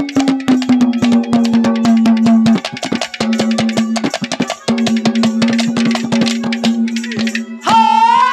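Live ragni band music with no singing: fast hand-drum strokes over steady held notes, and a high wavering note joining near the end.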